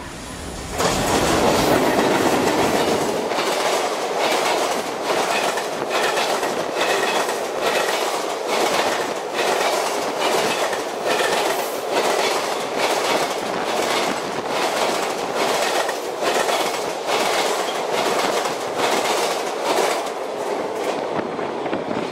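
EH500 electric locomotive and its train of container wagons passing close by at speed: a loud rush that sets in about a second in, then a steady rumble with a rhythmic clatter of wheels over rail joints, about two beats a second.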